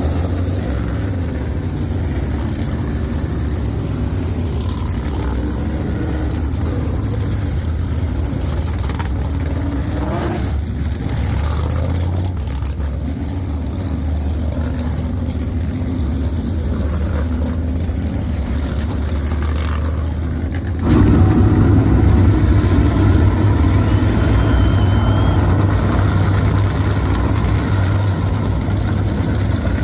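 Race car engines running in a continuous low drone, with an engine revving up briefly about ten seconds in. About two-thirds of the way through, the sound cuts suddenly to a louder, steadier engine drone.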